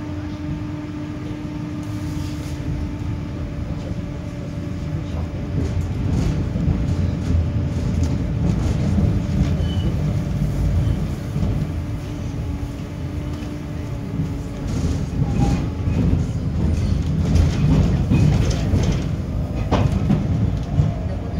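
71-931M Vityaz-M tram running along the track: a continuous low rumble of wheels on rail with a steady hum that fades out about halfway. It grows louder after a few seconds and again near the end, where scattered clicks and knocks come through.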